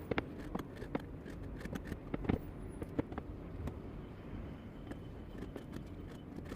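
Knife knocking on a cutting board while slicing raw pork into thin strips, irregular strokes roughly one or two a second, over a low steady background hum.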